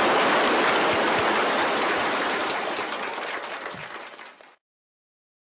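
A roomful of people applauding, a dense patter of hand claps that fades away and cuts off about four and a half seconds in.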